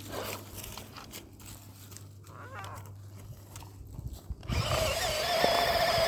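Electric motor of a radio-controlled truck whining steadily at high speed, starting suddenly about four and a half seconds in after a quieter stretch.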